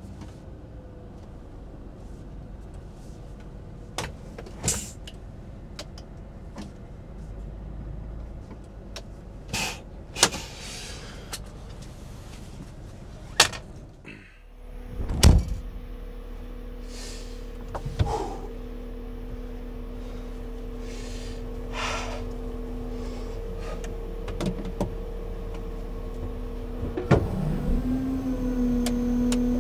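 Timber truck's loader crane handling pine pulpwood: sharp knocks of logs being set down on the load, and from about halfway a steady hydraulic-pump hum from the truck that rises in pitch near the end.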